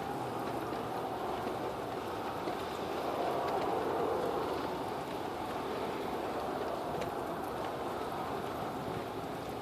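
Steady roaring noise from the sky, with no clear source. It swells a little about three to four seconds in.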